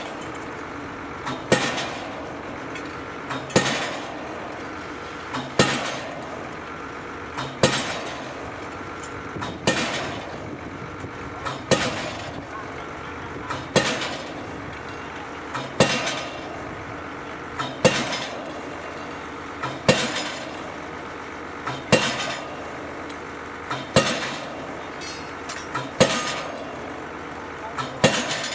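Pile-driving hammer striking a PHC concrete pile, one heavy blow about every two seconds, each with a lighter click just before it and a short ringing after, over a steady machine drone.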